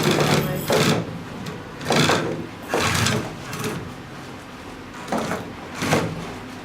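Small DC motors driving a robot's 3D-printed omni wheels, running in about six short, uneven spurts as the robot is jogged forward and back with a joystick.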